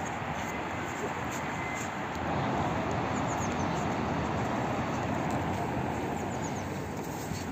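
Steady hum of distant city traffic, a little louder in the middle. A small bird chirps in short runs of three or four quick, high, falling notes about three seconds in and again near the end.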